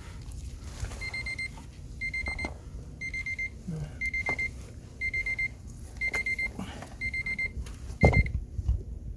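An electronic beeper sounding a quick burst of high pips about once a second, eight times over, like an alarm. A loud knock near the end.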